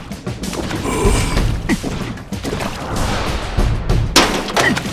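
Cartoon hail sound effects: a dense patter of small hits and thuds, with a sharp loud crash about four seconds in, over background music.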